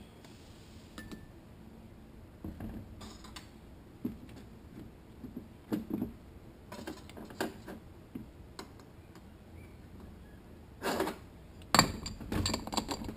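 Scattered clinks and light knocks of metal automatic-transmission parts being handled and set down on a steel workbench. Near the end there is a louder cluster of knocks as a part is fitted onto the clutch drum assembly.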